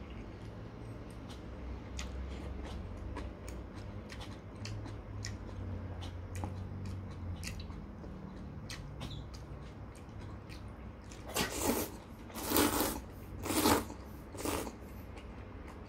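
A person slurping thin noodles from a bowl of noodle soup: four loud slurps, one after another, about three-quarters of the way through. Before them come quiet chewing and scattered small clicks.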